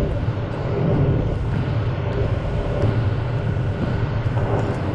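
Tractor engine running steadily under load while pulling a loaded grain cart down the road, a constant low rumble heard from inside the cab.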